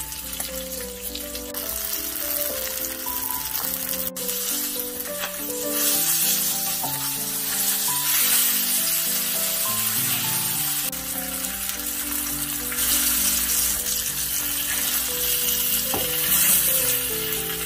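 Mackerel fillets dusted in starch sizzling as they fry in oil in a nonstick pan, the sizzle swelling and easing as they are turned. A melodic music track plays underneath.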